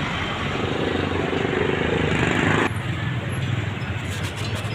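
Street traffic noise, with a motor vehicle's engine hum close by that cuts off suddenly a little under three seconds in, leaving a quieter traffic hum.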